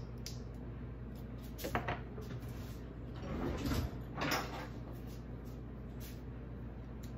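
Minced garlic jar being opened and handled: a sharp click near two seconds in, a short scraping rustle about three and a half seconds in, then another click, over a steady low hum.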